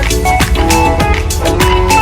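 Background music with a steady, fast beat and plucked, guitar-like melody notes.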